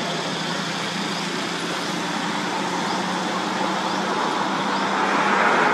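Steady background noise with a low, even hum, swelling slightly near the end.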